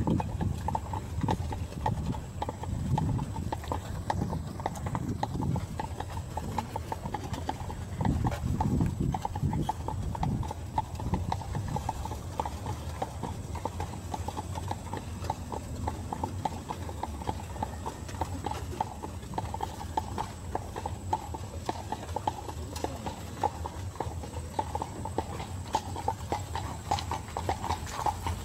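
Horse's hooves clip-clopping on the road as it pulls an open carriage, over a steady low rumble.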